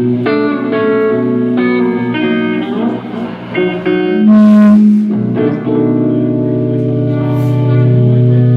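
Guitar played during a sound check: a run of plucked notes and chords, a loud low note about four seconds in, then chords left ringing on for the rest of the time.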